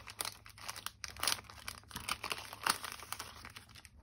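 Clear plastic cellophane packaging crinkling and crackling in irregular bursts as it is handled and pulled open.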